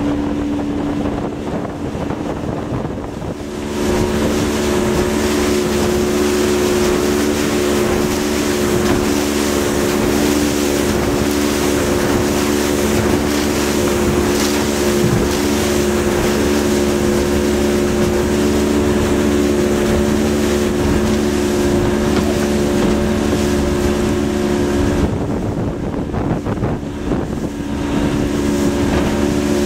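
Small boat's engine running steadily with wind and water rushing past. About four seconds in it opens up and the rush grows louder, then it eases back for a few seconds near the end before picking up again.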